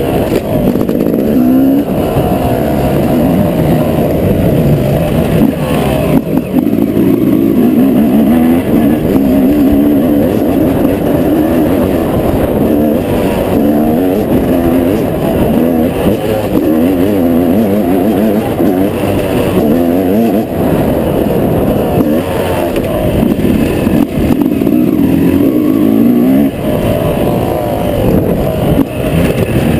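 Yamaha YZ250 two-stroke single-cylinder motocross engine, heard onboard while being ridden hard. It runs continuously and loudly, the revs rising and falling again and again as the throttle opens and closes and the gears change.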